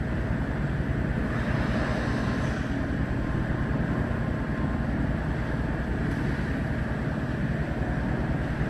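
Car ferry's engines running with a steady low throbbing rumble while the ship berths, with wind on the microphone.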